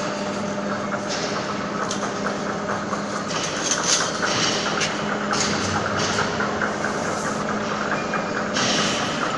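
Kramatorsk 1A665 heavy screw-cutting lathe running: a steady mechanical hum with a low steady tone, broken by intermittent bursts of rattling and clicking.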